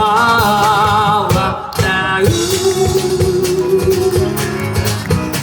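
Live band music with guitar and drums playing through an instrumental stretch of a pop song, with a singer holding a wavering note at the start.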